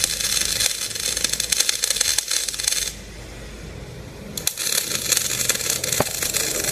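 Electric arc welding: the arc crackles and hisses, stops about three seconds in, and strikes up again about a second and a half later.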